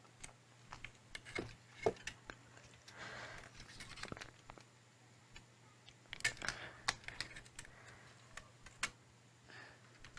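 Faint, irregular light plastic clicks and taps from a PS4 controller and its parts being handled, with a denser run of clicks about six seconds in and a brief soft rustle near three seconds.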